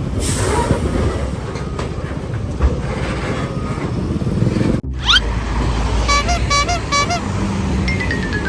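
Road traffic rumble until an abrupt cut nearly five seconds in. A brief rising whistle follows, then a quick melodic run of musical horn notes like a bus telolet horn, and a long falling tone near the end.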